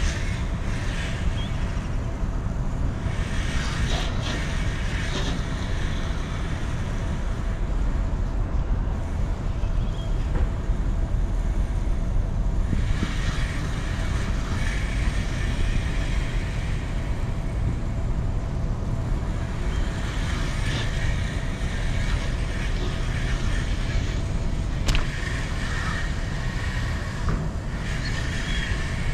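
Steady low rumble of a car idling, heard from inside the cabin, with one brief click near the end.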